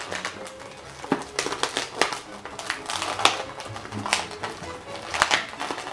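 Long black latex modelling balloon squeaking and rubbing in the hands as it is twisted, a run of short sharp squeaks and creaks, over quiet background music.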